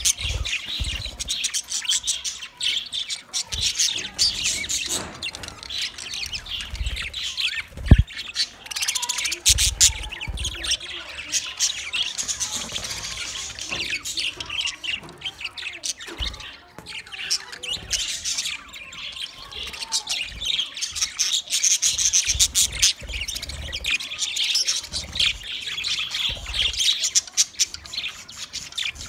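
A flock of budgerigars chattering and chirping, many birds at once in a dense, continuous warble of short high calls. A single sharp knock sounds about eight seconds in.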